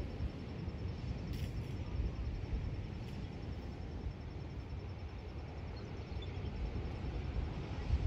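Wind on an outdoor microphone: an uneven low rumble that rises and falls in gusts.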